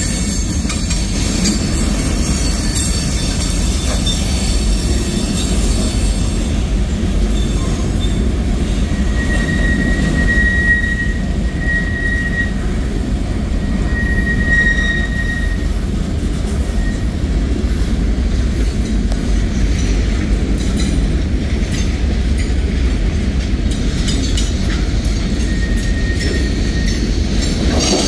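Freight cars of a CSX manifest train rolling past with a steady low rumble. Brief high-pitched wheel squeals come about ten seconds in, a few more in the next five seconds, and once more near the end.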